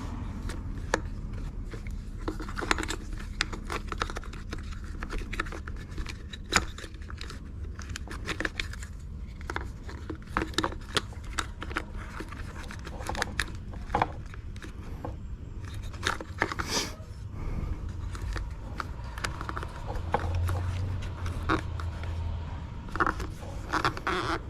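Scattered clicks, taps and scrapes of hands working on a steering wheel's plastic and leather-covered parts while taking it apart, over a steady low hum.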